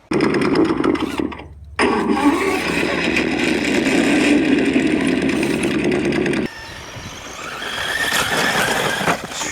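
Radio-controlled model vehicle's motor and gears running with a buzzy whine. It cuts out briefly about a second in, comes back, and changes abruptly to a quieter run after about six and a half seconds.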